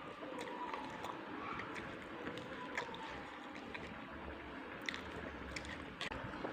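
Wet chewing and mouth sounds of someone eating rice with boiled cassava leaves, tofu and tempeh, with scattered small clicks over a low background hum.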